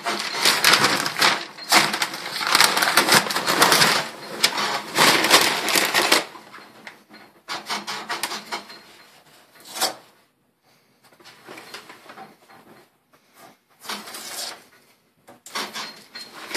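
Masking tape and masking paper being pulled out and pressed onto a truck door, with dense crinkling and crackling for about six seconds, then scattered crackles and taps with short pauses between them.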